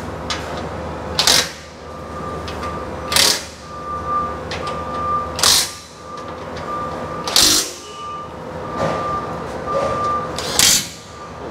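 Cordless impact wrench hammering bash plate bolts snug in short bursts, about five of them roughly two seconds apart.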